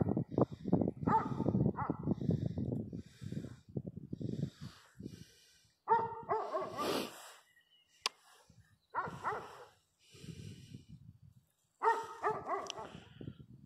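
A dog barking in short bursts, about six seconds in, around nine seconds and again near the end, with low rumbling thumps over the first few seconds.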